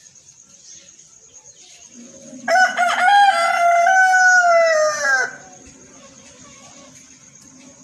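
A rooster crowing once: a single call about three seconds long that drops in pitch at the end.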